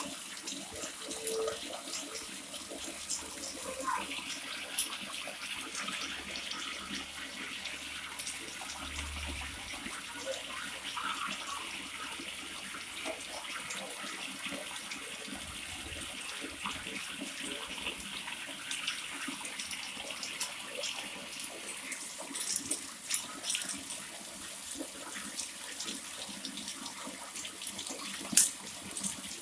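Water pouring steadily from a spout, with a run of sharper splashes about three quarters of the way in and one more near the end.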